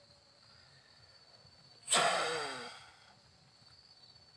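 A person's sudden heavy sigh about two seconds in: a burst of breath whose voice falls in pitch and fades away within a second.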